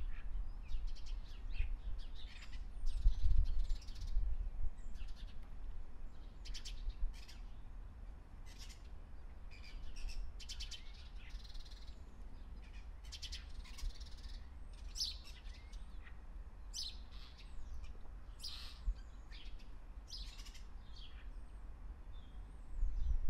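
Several birds chirping and calling in short, scattered high-pitched phrases, over a low rumble that is strongest in the first few seconds.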